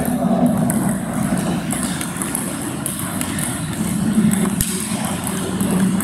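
Steady low hum filling a table tennis hall, with scattered sharp clicks of ping-pong balls struck and bouncing in play at nearby tables.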